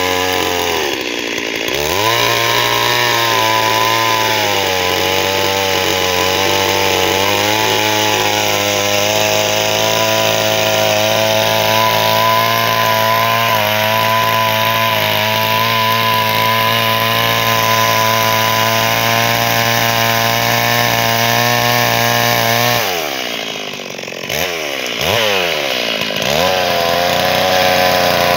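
Two-stroke petrol chainsaw ripping a log lengthwise, the engine running at high revs under load. The revs sag and recover near the start, and toward the end they drop off and rise again a few times before the cut resumes at full speed.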